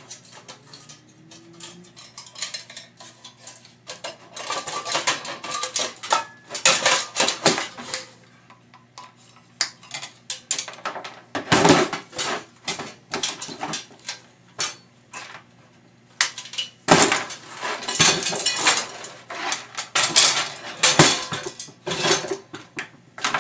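Sheet-steel recessed light housing being taken apart by hand: irregular clanks, rattles and scrapes of thin metal parts, coming in bursts with quieter gaps between.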